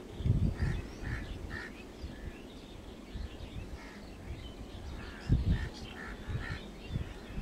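Birds calling in repeated short calls over faint open-air background noise, with a few low thumps near the start and just past the middle.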